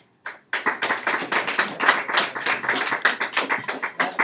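A small group of people clapping: fast, irregular, overlapping claps that start about half a second in and keep going.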